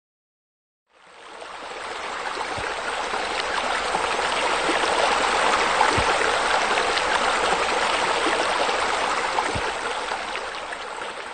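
Flowing, splashing water: an even rush that fades in about a second in, swells through the middle and fades out near the end, with a few faint low knocks.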